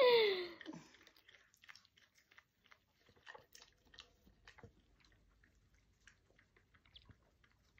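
Dog licking and lapping inside a paper cup of a cold McDonald's treat, a run of soft wet clicks and smacks. A brief vocal sound falls in pitch right at the start.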